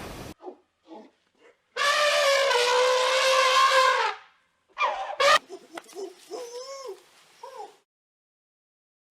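A dog whining: one long drawn-out whine-howl of about two seconds, then two short sharp cries and several short whimpers that rise and fall in pitch.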